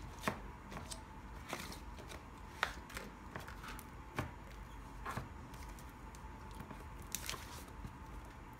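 Thick white cream slime being pulled and stretched out of a small plastic cup, giving irregular small clicks, pops and crackles.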